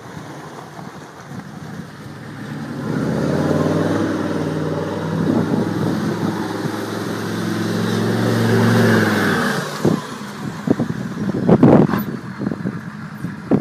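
Old lifted Chevrolet SUV's engine revving hard as it slides through mud, the revs climbing and then dropping away suddenly about ten seconds in. A few loud knocks and bursts follow as it passes close by.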